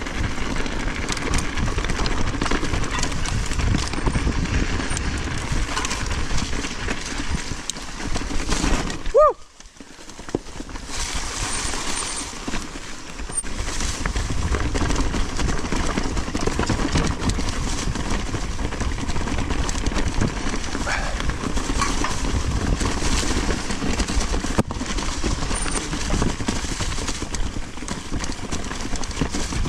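Mountain bike ridden fast along a dirt trail: constant wind rush on the microphone with tyres on dirt and the bike rattling over rough ground. About nine seconds in there is a short rising squeak, then the sound drops away for about a second before the riding noise returns.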